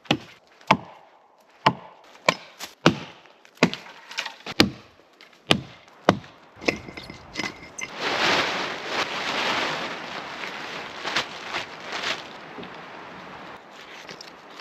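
Chopping the dry branches off a fallen spruce trunk: a row of sharp wooden blows about once a second, followed by several seconds of rustling noise.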